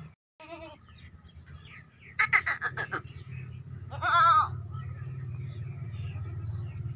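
Goat bleating: a faint wavering bleat near the start and a loud, quavering bleat about four seconds in. Between them, just after two seconds, comes a quick run of sharp knocks, over a steady low hum.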